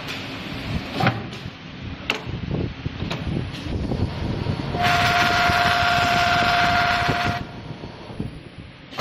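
Automatic wood handle sanding machine running: a few sharp clunks as a wooden handle is clamped in, then a loud abrasive hiss with a steady tone for about two and a half seconds while the spinning flap sanding wheel grinds the turning handle, cutting off suddenly.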